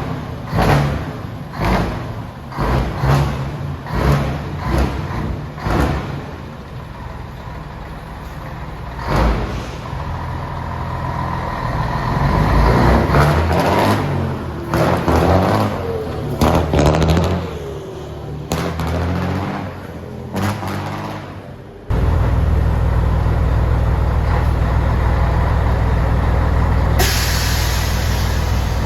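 Car with a loud, hoarse exhaust being revved: repeated quick throttle blips, each rising and falling in pitch, with some longer revs. About 22 s in the sound cuts abruptly to a steady, loud engine drone.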